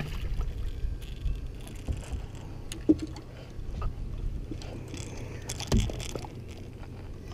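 Low wind rumble on the microphone over a boat, with scattered knocks and taps as a channel catfish is swung aboard on the line; a sharper knock about three seconds in and a heavier thump just before six seconds.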